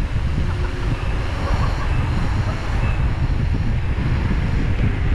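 Steady, loud wind buffeting on the microphone of a cyclist's camera while riding along a paved road.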